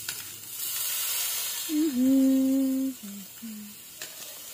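Minced garlic sizzling in a stainless steel pan as it is stirred with a spoon. About two seconds in, a person hums one long steady note, then two short ones.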